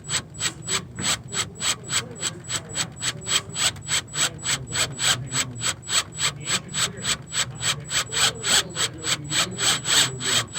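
Cordless drill working on a seized EGR bolt, a steady mechanical clicking about four times a second with a thin constant whine above it.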